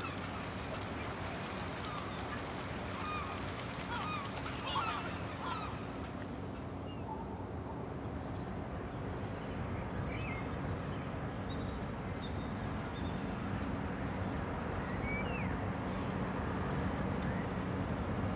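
Outdoor harbour ambience: a steady low rumble with a faint hum, and birds calling repeatedly through the first few seconds.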